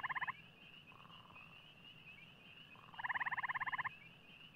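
Frogs calling: loud, rapidly pulsed trills, one ending just after the start and another about three seconds in lasting just under a second, with fainter trills between them, over a faint steady high-pitched buzz.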